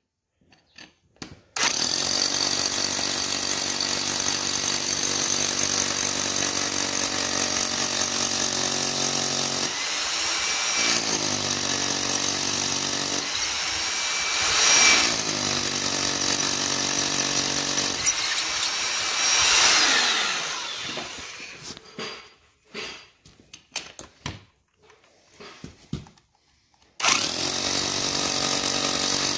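Corded hammer drill with a masonry bit boring an anchor hole into a concrete floor. It starts a second or two in and runs steadily, with a couple of brief slowdowns. It stops for several seconds about two-thirds of the way through, then starts again near the end.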